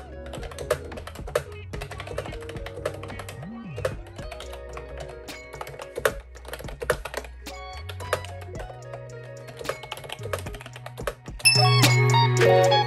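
Fingers typing on a wireless keyboard with round, typewriter-style keycaps: a quick, uneven clatter of key clicks over soft background music, which swells near the end.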